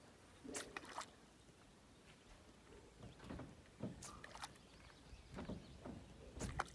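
Faint water lapping around a small fishing boat, with a few short sharp clicks and knocks, one around half a second in, another near four seconds and one near the end.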